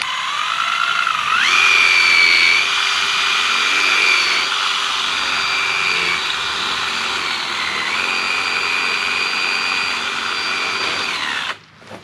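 Cordless drill with a large bit boring a hole into a thick woody vine. The motor starts at once, steps up in pitch to a steady high whine about a second in, sags in pitch a few times as the bit bites, and stops shortly before the end.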